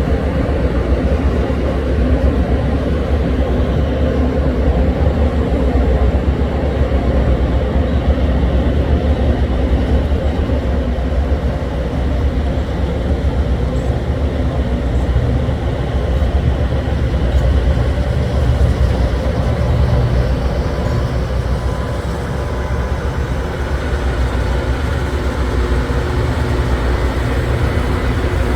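Loram rail grinder train running on the mainline rails, giving a loud, steady heavy rumble.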